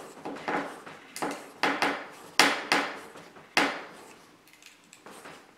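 Homemade plywood clamp cracking under load as its threaded wooden dowel is screwed tighter: a series of sharp, irregular cracks, about eight in four seconds, then fainter ones. The quarter-inch plywood of the clamp is breaking.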